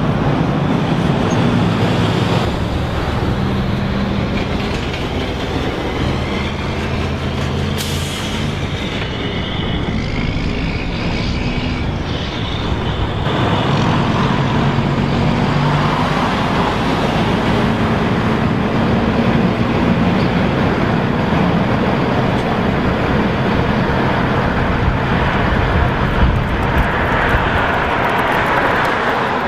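Road traffic passing: motor vehicle engines running with tyre noise, the engine pitch shifting as vehicles go by.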